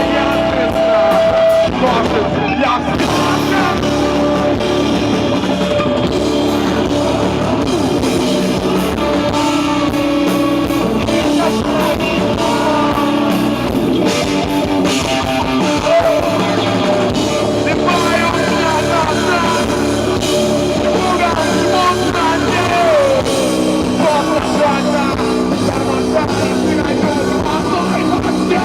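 Live rock band playing loudly: electric guitars and drum kit with a singer's voice.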